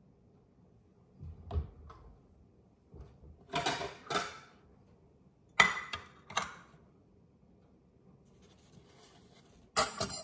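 Kitchen handling sounds: a lid-mounted spreading knife and its jar lid being handled on a countertop, giving a series of separate knocks, clatters and sharp clicks, with the loudest click about halfway through and a quick double clatter at the very end.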